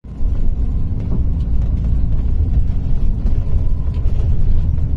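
Steady low rumble of a moving vehicle's road and engine noise, heard from inside the cabin.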